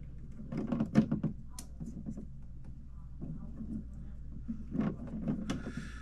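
Light clicks and rustling of electrical wires being handled and fitted into Wago lever nuts at a junction box, with some low muttering.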